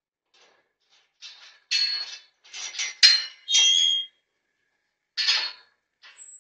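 Metal stall panels and a gate clanking and rattling: a quick run of ringing metallic clanks from about a second in to four seconds, then one more clank about five seconds in.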